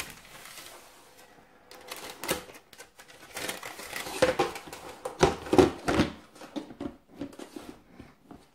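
Baking paper rustling as it is laid over the dough, then a clear plastic storage box and its lid being handled, with a quick run of plastic clicks and knocks and a few heavier thumps about five to six seconds in.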